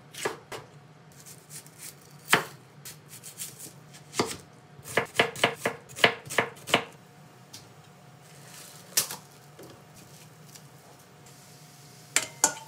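Kitchen knife slicing green bell pepper and onion on a bamboo cutting board: sharp knocks of the blade hitting the board, with a quick run of strokes in the middle. Two sharp knocks close together near the end.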